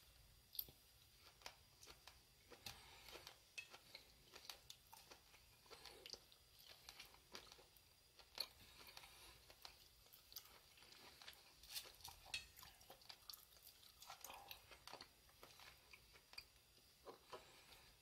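A person chewing a mouthful of sirloin steak and stir-fried vegetables: faint, irregular clicks and crunches, with a few louder clicks among them.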